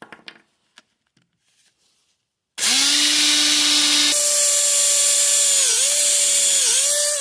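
Electric drill fitted with a step drill bit, starting up a little over two seconds in and running steadily. Its pitch jumps higher about a second and a half later, dips briefly twice, and begins to wind down at the end. Faint clicks of handling come before it starts.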